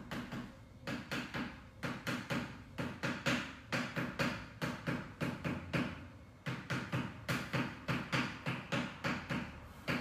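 Rhythmic percussive tapping on a patient's body, about three strikes a second, with a short pause about six seconds in.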